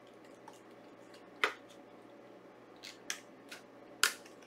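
A few sharp plastic clicks and taps from handling a Blu-ray steelbook in a plastic protective case, the loudest about a second and a half in and again near the end.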